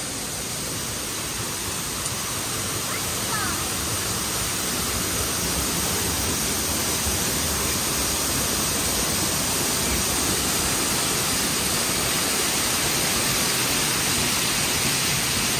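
Waterfall cascading over rocks into a pool: a steady rush of falling water that grows gradually louder as it gets closer.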